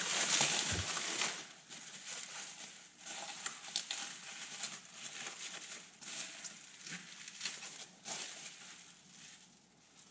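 Plastic bubble wrap crinkling and rustling as it is pulled open and unwrapped by hand, loudest in the first second or so, then in quieter bursts that die away near the end.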